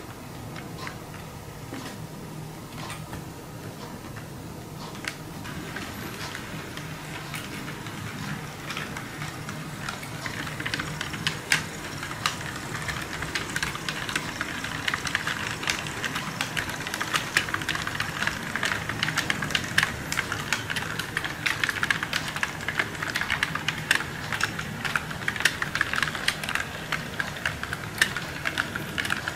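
Model subway trains running on a toy-train layout: a fast, irregular clatter of small metal wheels clicking over rail joints and turnouts, over a steady electric motor hum and whine. The clicking grows louder and denser from about ten seconds in as a train passes close.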